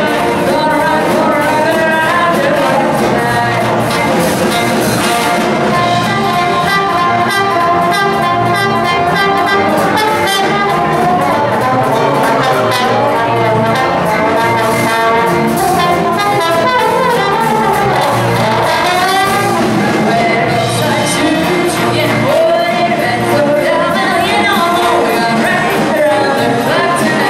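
Live big band playing with a woman singing lead: trumpets and trombones over drums, bass and guitar.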